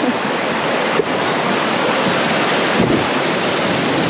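Rushing water of a spillway as a kayak runs down it: a loud, steady rush of whitewater, with two brief thumps, about one second and three seconds in.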